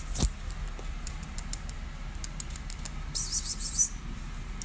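Kittens crunching dry food: scattered small clicks, a louder click just after the start, and a short rattly burst about three seconds in.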